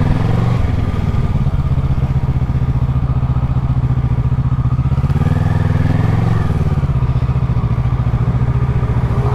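2012 Kawasaki Ninja 650's parallel-twin engine running steadily, its pitch lifting a little about five seconds in and settling back.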